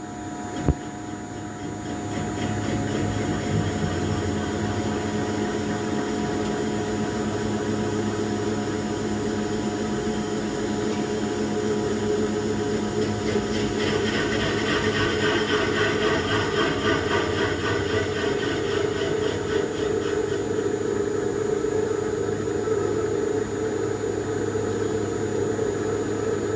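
RMT TGB14 CNC pipe-threading machine running, its tool head spinning around the end of a stationary ductile iron pipe with a steady whir. There is a click just after the start, the sound grows louder about two seconds in, and a harsher, higher note joins for several seconds around the middle.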